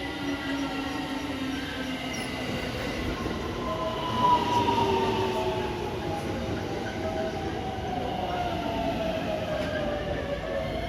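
Electric multiple-unit train pulling into the station, its inverter-driven traction motors whining in several tones that slide down in pitch as it brakes, over the rumble of wheels on rail.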